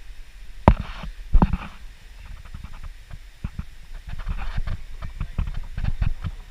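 An irregular series of knocks and thumps, two louder ones about a second in, then many lighter ones.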